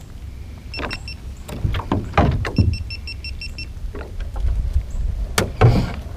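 Knocks and clunks on a bass boat's deck and hull as the long pole and rope are handled, the loudest a little past five seconds, over a low rumble. Two short runs of quick high electronic beeps, about seven a second, come about a second in and again from about two and a half seconds.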